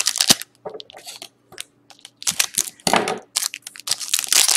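Crinkling and tearing of trading-card packaging as a box of hockey cards and its first pack are opened: irregular bursts of rustling with short pauses between.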